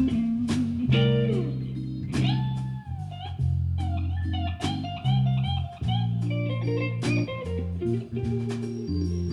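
Band playing a bluesy tune: an electric guitar lead with bent, wavering notes over bass guitar.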